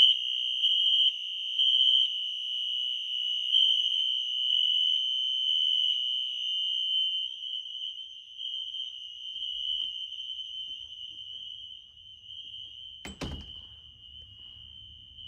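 Fire alarm horns sounding after a pull station is pulled: one horn set to continuous holds a steady high-pitched tone, while a second horn on the code-3 temporal pattern adds loud pulses over the first several seconds before the sound settles quieter. A single thunk comes about 13 seconds in.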